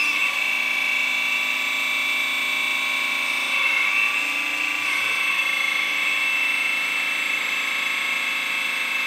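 Hydraulic pump of a 1/14 JDMODEL RC excavator running with a steady high whine while the stick cylinder is worked, the tone shifting slightly about halfway through.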